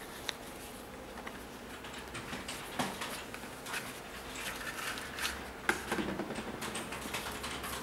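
Handling noise: scattered light clicks, taps and rustles as hands move a sneaker and its clear plastic lace lock, over a faint steady room hum.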